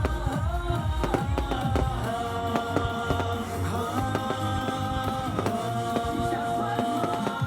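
Music with long held notes that slide between pitches, over a steady beat.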